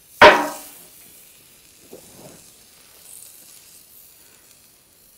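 Olive oil sprayed onto a skewered chicken over a charcoal grill: a faint steady sizzle and hiss, after one loud, short, sudden sound about a quarter second in.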